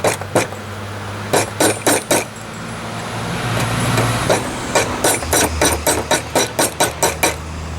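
Hand hammer striking steel on an anvil while forging a railroad spike: a few strikes, a pause, then a quick run of about a dozen blows at roughly four a second. A steady low hum runs underneath.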